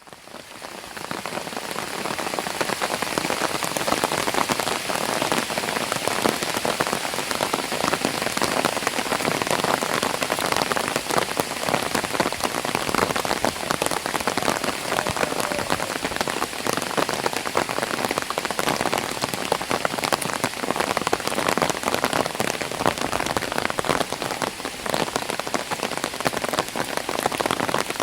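Light rain falling on an umbrella: a dense, steady spray of small drop hits that rises over the first second or two and then holds.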